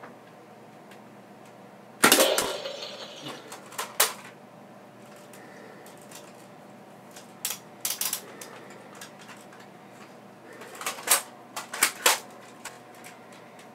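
A Nerf dart shot knocks down an electronic flip target, which plays a short sound effect as it falls, about two seconds in; this is the loudest moment. After it come sharp plastic clicks and clacks as the pump-action Nerf blaster is reloaded and pumped.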